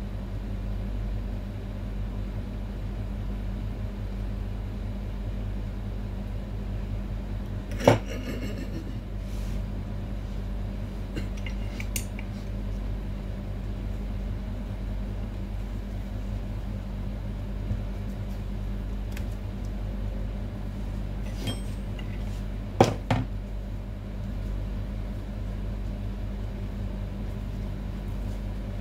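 Metal parts of a hair-cutting chair's hydraulic lift cylinder clinking and clanking as they are handled and fitted by hand: a sharp clank about a third of the way in, lighter clicks, and a double clank about three quarters of the way in, over a steady low hum.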